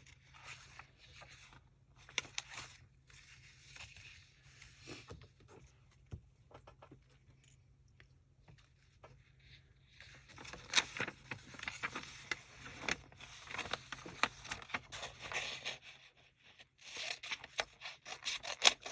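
Wrapping paper and craft paper rustling, sliding and scraping as they are handled, in irregular bursts that grow busier and louder about halfway through.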